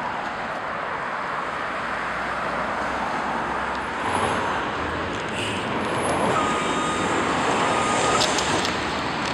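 City street traffic: a steady wash of passing motor vehicles that grows a little louder about halfway through, with a single steady high tone lasting about two seconds near the end.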